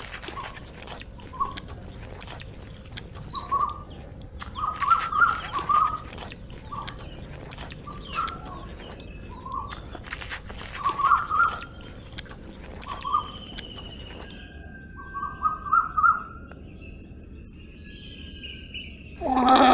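Short bird chirps in small clusters every second or two, over a steady rural background. A loud animal call starts abruptly near the end.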